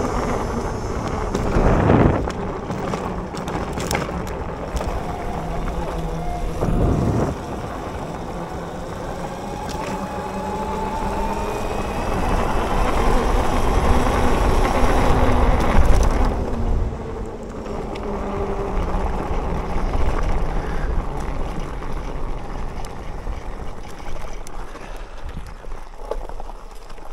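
Bafang BBSHD mid-drive e-bike motor whining under load, its pitch rising and falling with speed over a steady rushing noise. Two louder thumps come about two and seven seconds in.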